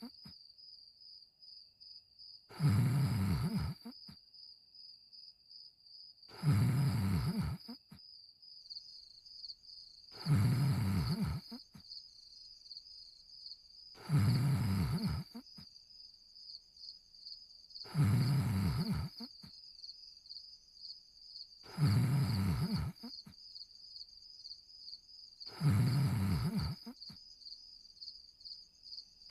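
A cartoon dog snoring in his sleep: seven long, deep snores, one about every four seconds. Crickets chirp steadily behind the snores.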